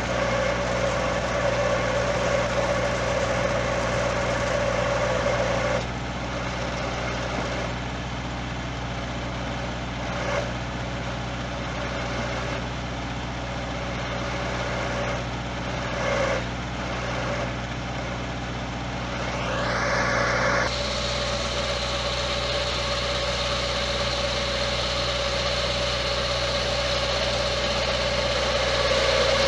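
Tractor engine running steadily as it drives a hydraulic grab crane. The tone shifts about six seconds in, and a short rising whine near the twenty-second mark settles into a higher steady note as the crane is worked.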